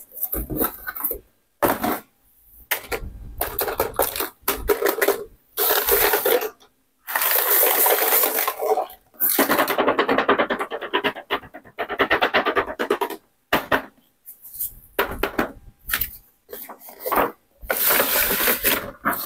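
Small hard-plastic toy accessories clattering, scraping and rattling against each other as they are sorted by hand, in repeated bursts with silent gaps between. Near the end, a cardboard doll box with a plastic window is handled and opened.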